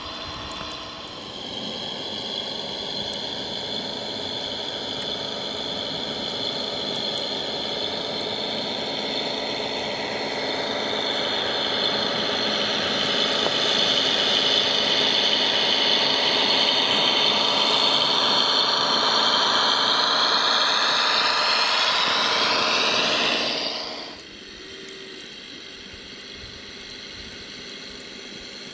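Radio-controlled model Claas Xereon 5000 tractor driving and pushing through snow, with a steady high whine from its drive that rises and grows louder. The sound cuts off sharply about 24 seconds in, leaving a quieter, steady hum.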